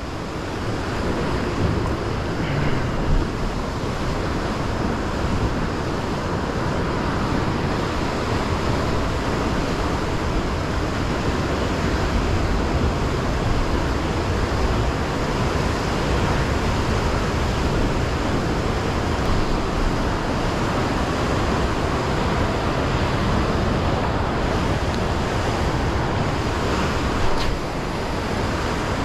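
Rough sea surf breaking and washing over coastal rocks, a steady rushing noise with a heavy low rumble, with wind on the microphone.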